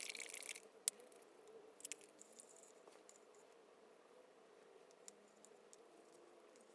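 Faint handling sounds at a workbench: a brief scratchy rustle at the start, a sharp click just under a second in and a few more around two seconds, then only scattered light ticks.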